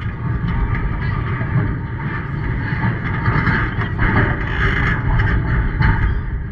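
Wind buffeting the microphone as a steady low rumble, with faint scattered voices from players and spectators.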